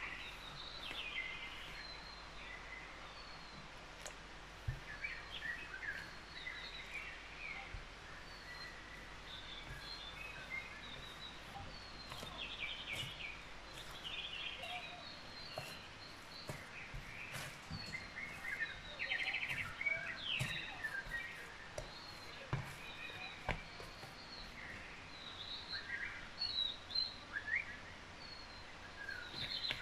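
Background nature-sound track of many small birds chirping and warbling, with a few scattered clicks.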